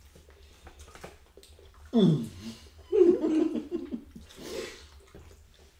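Wordless vocal sounds from a person: a falling vocal sound about two seconds in, then a short run of choppy laughter, then a breathy exhale.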